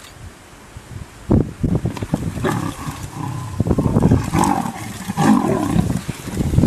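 A leopard snarling and a lion growling as the lion attacks it. It is quiet for about the first second, then harsh, loud snarls and growls follow one after another to the end.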